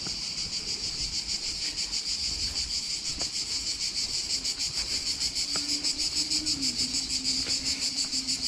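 Summer cicadas in the riverside trees, a loud chorus pulsing fast and evenly, with a few faint ticks of footsteps on the dry dirt path.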